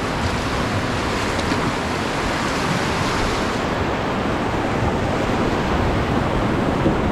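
Steady rush of river water around a raft, with wind buffeting the microphone.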